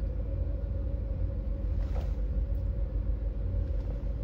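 Steady low rumble and hum of a car idling, heard from inside the cabin.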